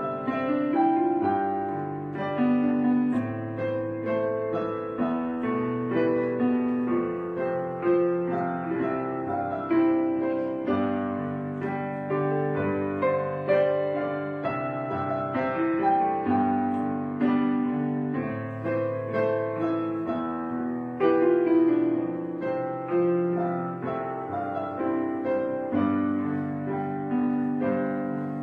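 Background piano music: a slow run of chords and melody notes, each struck and left to ring away before the next.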